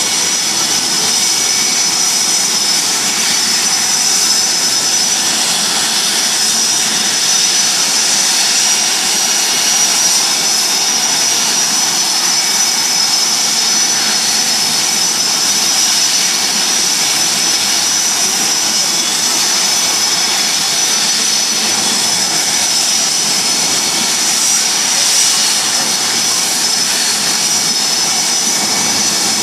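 Blue Angels F/A-18 Hornet jet engines running on the ground: a steady, loud turbine rush with a high whine.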